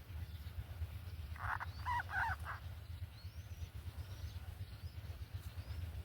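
A bird gives a short, harsh call of a few quick notes about a second and a half in, over a steady low hum. Faint, thin rising chirps follow later.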